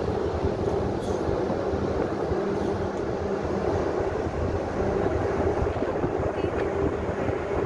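Steady low rumble of machinery with a droning hum, and a second lower hum that fades out about halfway through.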